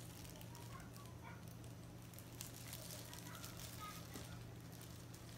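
Quiet handling sounds of food prep: a metal spoon scraping and tapping on a plate and plastic gloves rustling as filling is spooned onto a softened rice paper sheet, with a few faint ticks over a steady low hum.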